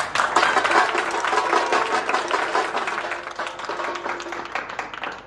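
A small group of people clapping, a dense round of applause that gradually thins out and gets quieter toward the end.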